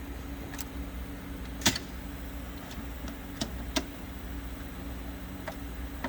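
Scattered sharp clicks and knocks from hands fitting a lamp module into a Christie Roadster projector, the loudest about a second and a half in, over a steady low hum.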